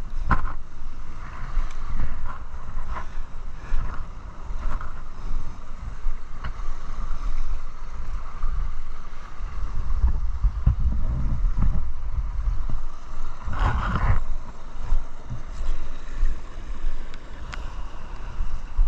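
Motorcycle engine running while riding an off-road trail, with heavy wind buffeting on the microphone and a few sharp knocks, the loudest about fourteen seconds in.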